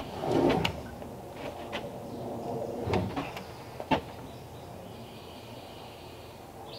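Wooden knocks and scraping as a log rafter pole is slid into place on a timber frame. Several clunks come in the first four seconds, the sharpest about four seconds in.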